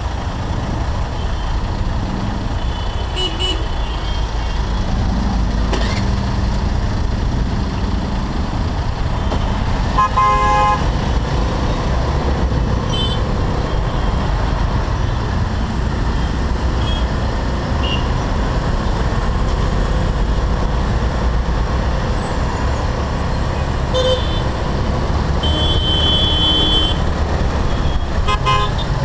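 Honda Navi's small single-cylinder engine running under a steady low rumble of road noise in dense city traffic. Short vehicle horn toots sound several times, the loudest about ten seconds in and a cluster near the end.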